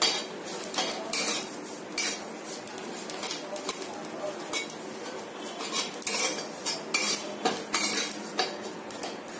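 Metal spatula scraping and clinking against a metal kadhai in repeated, irregular strokes as thin vermicelli is stirred and roasted in a little ghee.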